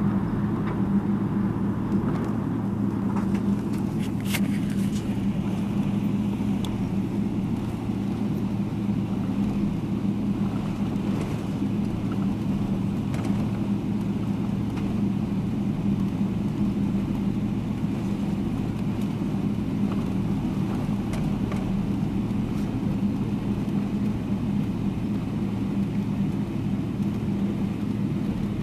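Jet airliner's engines running at low taxi power, heard inside the cabin as a steady drone with a low hum while the plane taxis.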